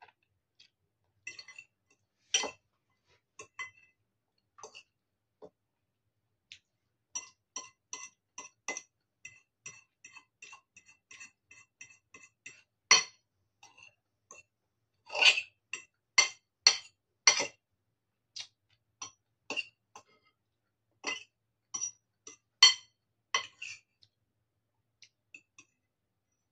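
A metal fork clinking and scraping against a ceramic bowl of noodles in irregular, briefly ringing taps. A quick run of small clinks comes in the middle, and several louder strikes follow in the second half.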